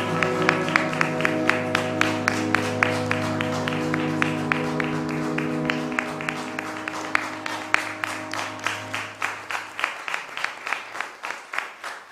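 Music of long held chords over a low drone, fading out about ten seconds in, together with audience applause of distinct, separate claps that carries on after the music ends.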